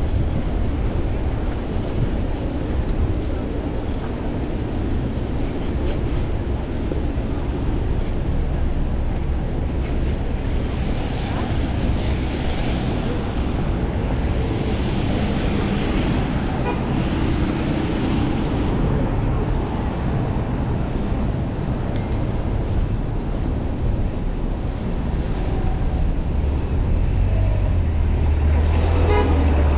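City traffic heard from a bicycle riding on wet pavement: a steady rush of wind on the microphone mixed with tyre hiss and passing cars. A deeper engine rumble builds near the end as the bike rolls in alongside cars.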